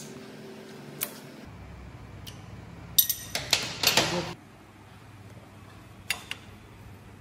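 Steel hand tools, a socket wrench and its extension bar, clattering and clinking against metal as they are pulled away and set down, a burst of sharp clanks with ringing about three seconds in. A few single clicks come before and after.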